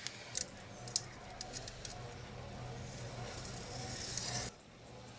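A few light metallic clicks and taps as a rough-forged 52100 bearing-steel blade is handled and set down on a steel plate, over a low steady hum.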